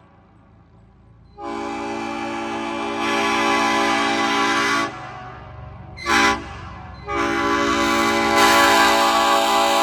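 Old-cast Nathan Airchime P5 train horn with bells 0-1-2-3-5 (P01235) sounding its chord on compressed air. It gives a long blast about a second and a half in that swells louder midway, then a short toot, then another long blast.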